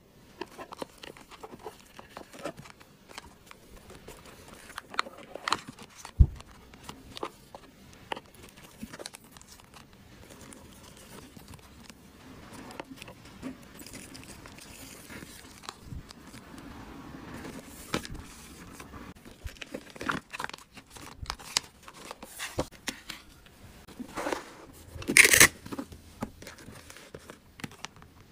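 Hands handling paper stationery and clear plastic sleeves and bags: plastic crinkling and paper rustling, broken by many short taps and clicks. There is a sharp knock about six seconds in and a louder burst of crinkling near the end.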